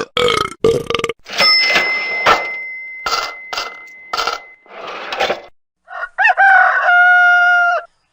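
A quick string of short, separate comedy sound effects played one after another, with brief gaps between them; near the end comes a longer held pitched call that dips at first and then stays level.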